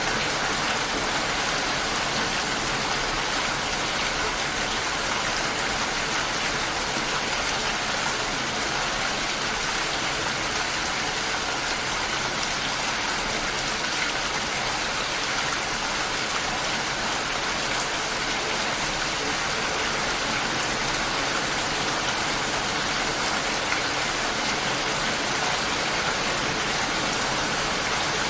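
Steady rain with an even, unbroken hiss and no thunder.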